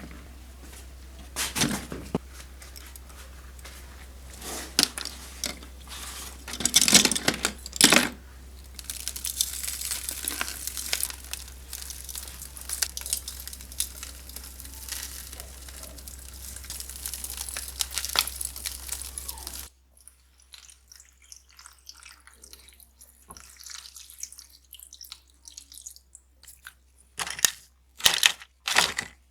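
Hand work on a small scale model car: scratchy rubbing, tearing and crunching noises with sharp clicks over a steady low hum, which stops abruptly about two-thirds through; then quieter handling with a few sharp clicks and knocks near the end.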